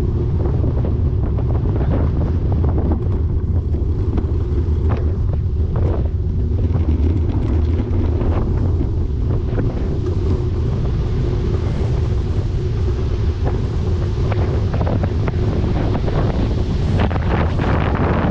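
Wind buffeting the microphone of a rider on a moving bicycle, a steady heavy rumble, with a few brief knocks along the way.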